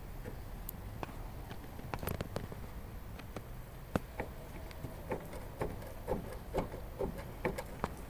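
Irregular light knocks and clicks, a few a second, coming more often in the second half, with a short ringing after some of them.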